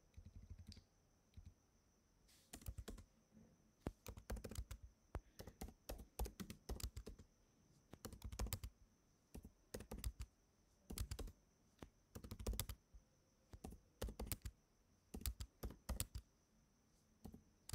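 Computer keyboard typing in irregular bursts of keystrokes, with short pauses between groups of keys.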